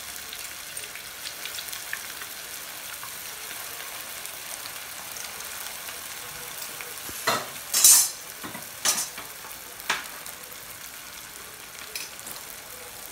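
Corn and semolina tikkis deep-frying in hot oil, a steady sizzle. A few sharp, louder noises come a little past halfway, the loudest about eight seconds in.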